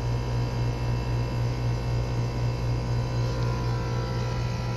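GeoStar geothermal heat pump running with a steady low hum.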